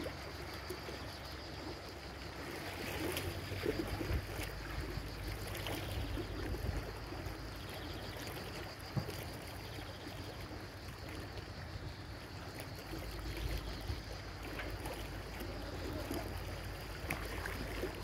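Sea water splashing and lapping in irregular bursts, over a low steady rumble.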